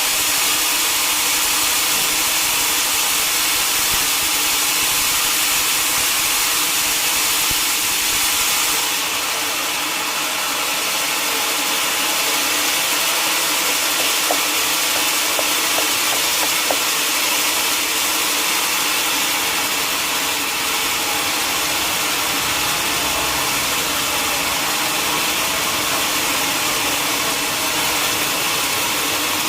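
Sawmill saw running steadily: a continuous hiss over a steady mechanical hum.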